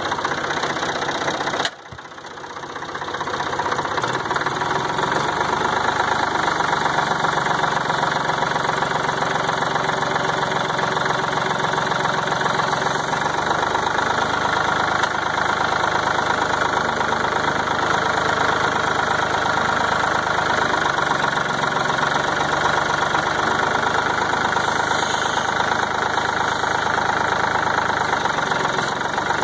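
Farm tractor engine running steadily, its pitch shifting slightly a couple of times, with a brief sharp dip in the sound about two seconds in.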